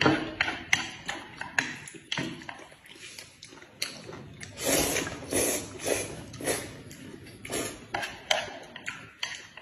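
People slurping noodles and chewing: a run of short slurps, with a longer, louder slurp about five seconds in.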